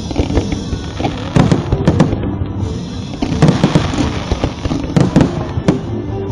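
Fireworks display: many shells bursting at uneven intervals, sometimes several a second, over a continuous low rumble, with music playing underneath.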